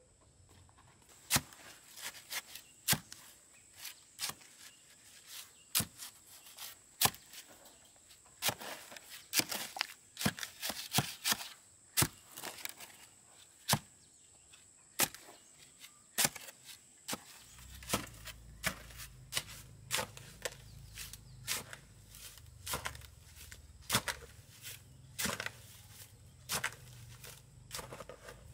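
Repeated sharp strikes of a hand tool on wood or earth, irregular at about one or two a second, as in chopping. A low steady rumble joins in about two-thirds of the way through.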